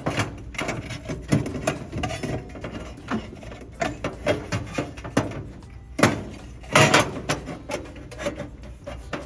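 Sheet-metal cover plate being fitted back over the power supply: scraping, rubbing and light clicks of metal on metal, with two louder knocks about six and seven seconds in.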